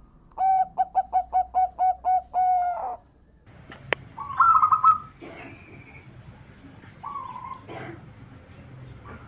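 Zebra dove (perkutut) cooing: a quick run of about eight short, even coos ending in one longer held note. About four seconds in come a sharp click and a loud, higher, warbling trill, then a few softer calls.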